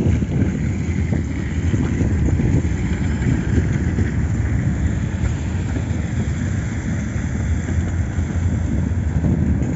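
KTV-57 service tram towing two Tatra T3SUCS tramcars past: a steady rumble of steel wheels on the rails, with wind buffeting the microphone.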